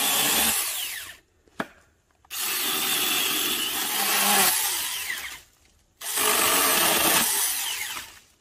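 Huing 4-inch battery-powered mini chainsaw cutting wood in three bursts, its motor winding down with a falling whine after each. A single sharp click comes between the first two bursts.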